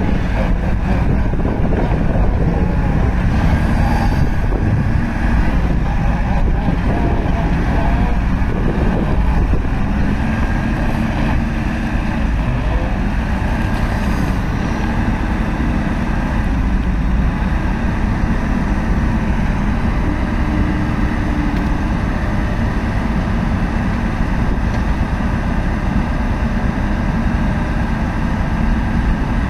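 Liebherr A900ZW Litronic rail-road wheeled excavator's diesel engine running steadily.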